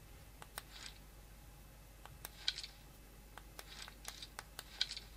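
Quiet, irregular small clicks and brief soft rustles from a cotton-gloved hand handling a Black Shark 3 Pro gaming phone and working its pop-up shoulder triggers. The loudest click comes about halfway through, with another cluster near the end.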